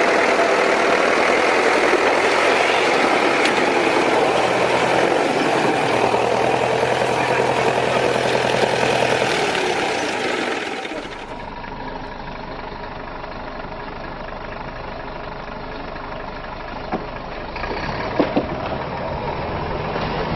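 Heavy construction machinery engine running loudly; about 11 seconds in the sound changes abruptly to a quieter engine rumble, with a few sharp knocks near the end.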